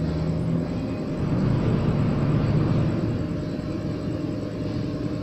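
MIG welding arc on thin aluminium sheet, crackling in short spot welds over a low hum. The welds are laid spot by spot because the aluminium is thin.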